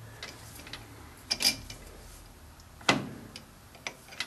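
Metal clicks from a Grizzly lathe's carriage, thread dial and half-nut mechanism, with one sharper clack about three seconds in, over a low steady hum.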